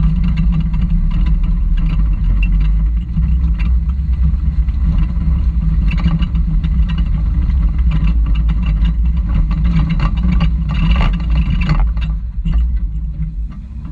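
Toyota rock-crawler buggy's engine running low and steady as it crawls over slickrock, with scattered clatter from the rig and tires working on the rock. The engine eases off briefly near the end.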